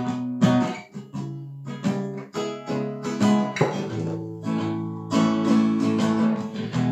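Acoustic guitar strummed in chords, with repeated strokes across the strings and ringing chord notes between them.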